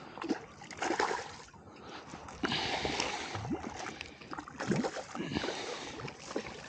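Hooked silver trevally thrashing at the surface close to the bank, splashing in several bursts, the biggest starting about two and a half seconds in.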